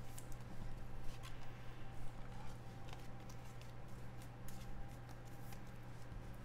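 Faint handling of trading cards: a few light clicks and rustles as cards are flipped through and slid into plastic sleeves, over a steady low hum.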